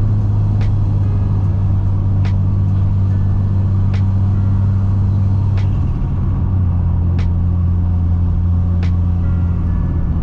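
Cabin drone of a Ford Falcon cruising at a steady speed: a low, steady engine and road hum that shifts slightly about six seconds in, with a light tick about every second and a half.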